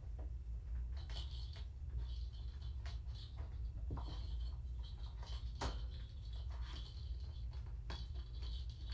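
Irregular scratchy rustling and light clicks of handling and rubbing right at the camera's microphone, over a steady low hum.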